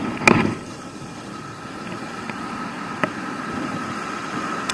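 Steady rush of breaking surf and wind on the microphone, with a sharp knock shortly after the start and a faint click about three seconds in.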